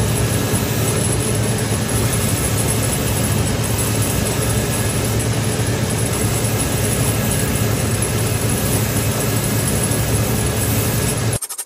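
Shoe-repair finishing machine running steadily, a low motor hum under a grinding whir as a leather midsole is sanded against its spinning wheels and belt. Just before the end it cuts off suddenly to a fast, rhythmic clatter of a stitching machine.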